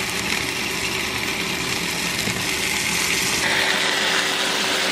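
Ground turkey sizzling as it browns in a pot while it is stirred, with a faint steady hum underneath; the sizzle grows louder a little past halfway.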